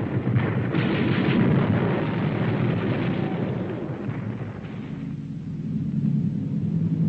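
Film sound effects of an artillery barrage: shell explosions and gunfire for the first four or five seconds, dying down into a low steady rumble.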